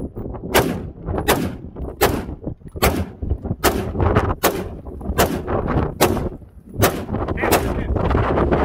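Short-barrelled AR-style rifle firing semi-automatic, about ten shots at a steady pace of a little more than one a second. Wind rumbles on the microphone throughout and grows stronger near the end.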